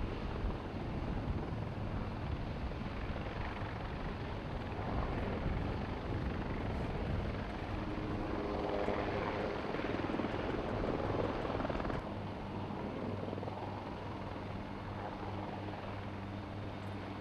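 UH-1Y Venom helicopter's rotor and turbine engine running as it lifts off and hovers low, a steady heavy rotor noise with a low hum. About twelve seconds in the sound cuts to a quieter, more distant helicopter hum.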